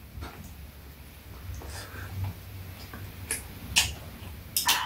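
A few light, scattered clicks and ticks of eating and of handling the buns, cup and metal tray, over a faint low hum.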